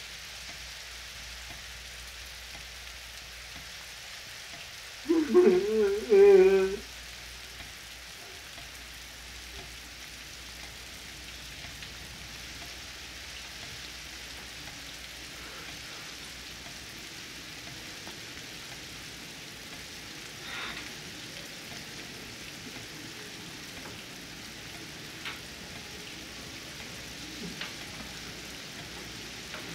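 A man's anguished wailing cry with a wavering pitch, lasting about two seconds, about five seconds in, over a steady background hiss. A few faint clicks come later.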